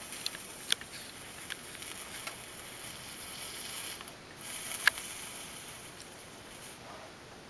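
Hot soldering iron sizzling on flux and molten solder as the solder is smoothed over the wand's joints, with a few sharp clicks, the loudest about five seconds in. The hiss fades out near the end.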